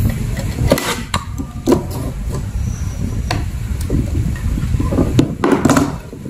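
Irregular sharp plastic clicks and knocks as a kitchen knife pries apart the snap-fit casing of a PLDT Home prepaid WiFi modem, with the knife set down on the table partway through and a short cluster of clicks near the end, over a steady low rumble.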